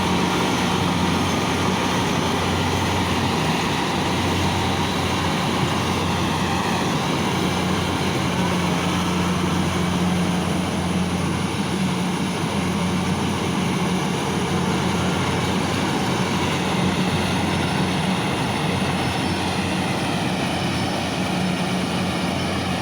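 Kubota DC68G combine harvester running steadily, its diesel engine holding a constant low hum under a dense mechanical rush.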